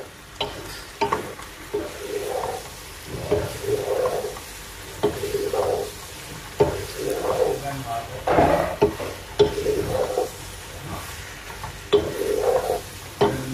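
Wooden spatula stirring and tossing penne in tomato sauce in a nonstick pot, scraping the pan with irregular knocks against it, over a light sizzle of the pasta frying.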